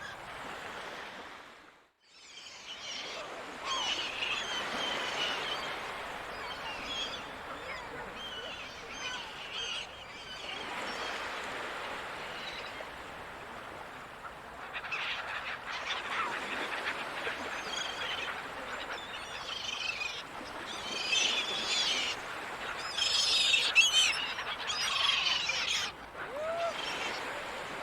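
Seagulls calling, many short cries over a steady wash of ocean surf, the calls crowding in and growing louder after about twenty seconds. The sound briefly drops out about two seconds in.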